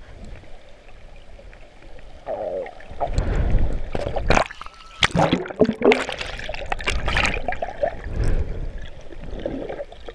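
Water sloshing and gurgling around a camera held at and just below the sea surface, with bubbling and sharp knocks; louder from about two and a half seconds in.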